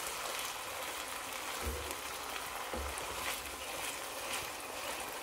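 Risotto rice cooking in broth in a wide pan with a steady soft sizzle, stirred with a wooden spoon that gives a few light scrapes and soft knocks against the pan.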